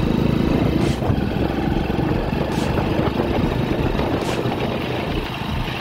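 Motorcycle engine running steadily at cruising speed, heard from a moving motorcycle along with wind and road noise.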